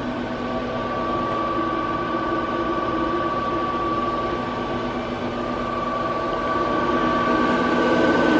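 Star SB-20R Type G Swiss-type CNC automatic lathe running: a steady mechanical hum with a constant high whine, growing a little louder near the end.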